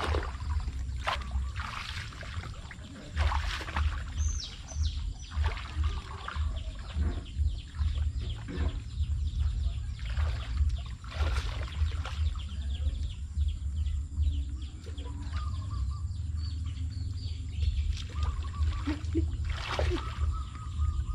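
Muddy water splashing and sloshing in irregular bursts as a man wades and scoops through a flooded, weedy field with a woven bamboo basket, over a steady low rumble, with a few bird chirps.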